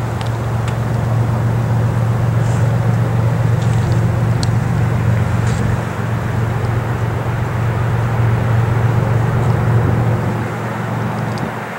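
Steady low drone of an approaching freight train's diesel locomotives, easing off shortly before the end.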